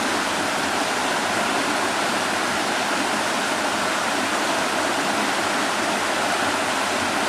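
Shallow rocky stream rushing steadily over stones as it flows beneath a rock overhang.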